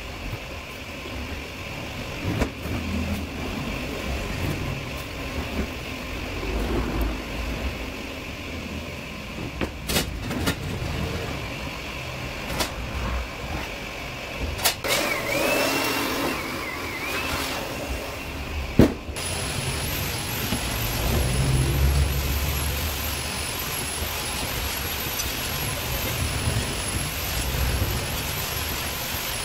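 Workshop background noise: a steady low rumble with a few sharp knocks of metal being handled, and a thin, high wavering whine in the last third.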